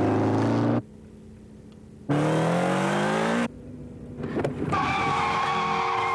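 Motorcycle engine revving up hard twice in short rising bursts, each cut off abruptly. Near the end a long steady screech sets in: tyres skidding under braking just before a crash.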